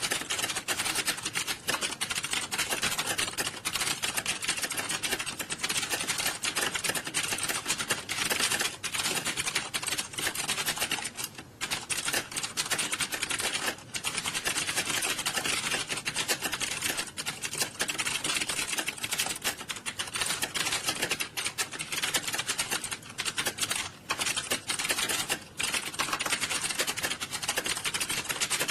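Many computer keyboards being typed on fast at the same time during a typing test: a dense, unbroken clatter of key clicks with a few brief lulls.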